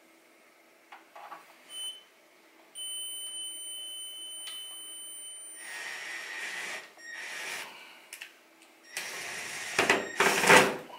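Cordless drill drilling a pilot hole into the wall: a steady high whine for about three seconds, then drilling in stop-and-go bursts, loudest near the end.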